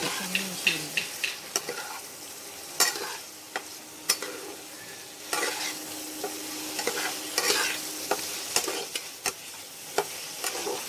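A metal spatula scraping and knocking against a wok as fried potato cubes are stirred through sizzling spice paste. The masala is being fried down (kashano) with the potatoes.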